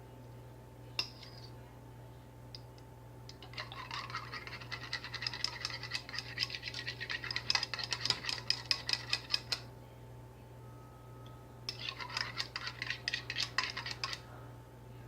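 A fork whisking beaten eggs and milk in a bowl, clicking and scraping against the bowl in quick, rhythmic strokes, in two spells with a short pause between.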